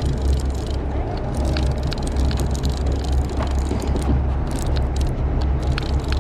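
Background noise aboard a charter fishing boat: a steady low rumble with scattered short sharp clicks.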